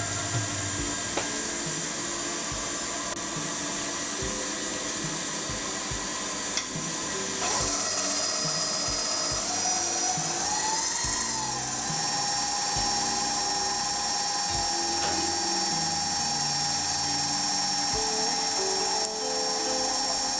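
CNC lathe running and cutting with a steady whine. About eight seconds in, its pitch rises and falls before settling into a steady higher whine. Background music plays underneath.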